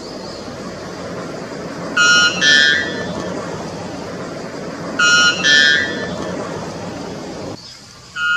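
Male white bellbird giving its loud two-note ringing song twice, about three seconds apart, each a lower note followed by a higher one. A steady low rushing noise runs underneath and stops shortly before the end.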